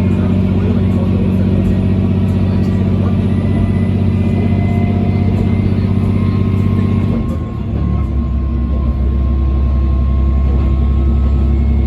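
KiHa 120 diesel railcar's engine running with a steady drone. About seven seconds in, the note breaks off with a brief dip in loudness and settles into a lower, steady drone. Faint clicks can be heard throughout.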